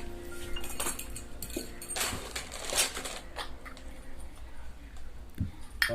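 Miniature metal cooking pots and utensils clinking and knocking against one another as they are handled, in scattered light clinks with a sharper knock near the end.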